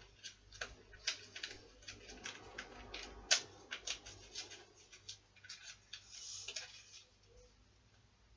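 Light, irregular clicks and taps with a little rustling as small objects are handled and set down, with one sharper knock a little over three seconds in and a brief scraping rustle a little after six seconds.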